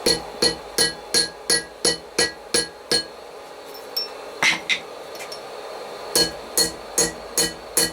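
Hand hammer striking hot steel on an anvil with a bright ringing note, about three blows a second. The blows stop about three seconds in, one lone blow follows, and a run of blows resumes near the end.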